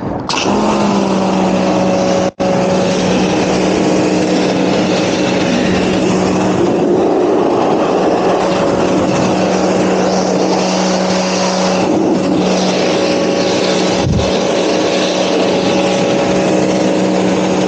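Pressure washer running and spraying: a steady motor-and-pump hum over the hiss of the high-pressure water jet. It starts just after the beginning and drops out for an instant about two seconds in.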